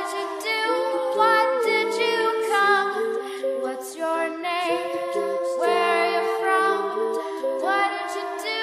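Multitracked a cappella female vocals singing layered harmonies with no clear lyrics: several voices at once over a low part of short repeated notes.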